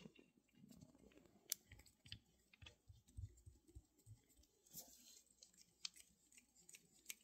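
Faint clicks and soft knocks of hands handling and threading a brass CO2 fitting onto a pistol's metal manifold, with a few sharper ticks spread through.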